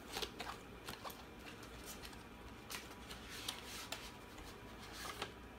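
A cardboard box being opened and handled, with contents sliding out: scattered short rustles, scrapes and light taps of packaging.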